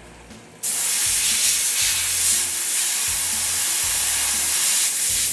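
Flood coolant spraying from two nozzles onto a CNC mill's end mill and a PVC part as it is cut: a loud, steady hiss. It starts suddenly about half a second in and cuts off suddenly near the end.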